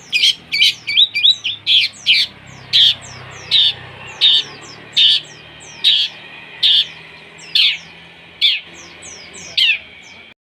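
Shrill bird calls, each a sharp chirp falling in pitch. They come in a quick run of several a second at first, then settle to about one every 0.8 s, and stop suddenly near the end. They are lure material of fighting sparrows and a lovebird, used to provoke a long-tailed shrike.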